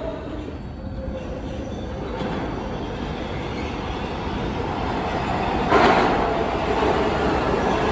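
A New York City subway train approaching an underground station: the rumble of wheels on rail builds steadily louder, with a brief loud burst of noise about six seconds in.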